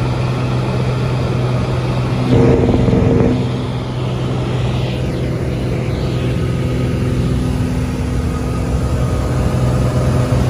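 The piston engine and propeller of a single-engine Cessna running steadily at climb power, heard as a loud, even drone inside the cabin. A louder rush of noise comes about two seconds in and lasts about a second.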